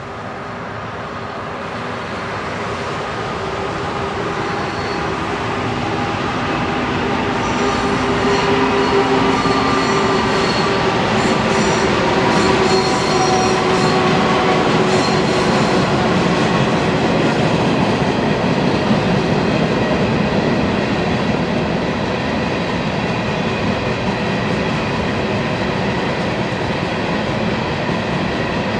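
GE AC4400 and EMD SD70M diesel locomotives hauling an empty coal unit train across a steel trestle viaduct. Their engines grow steadily louder over the first several seconds as the locomotives come overhead. About halfway through, the engine tones fade into the steady rolling noise of empty hopper cars on the bridge.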